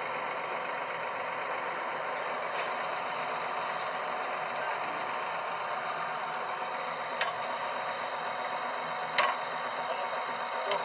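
Air borewell drilling rig running: a steady, noisy mechanical drone with a few sharp clicks, two of them louder in the second half.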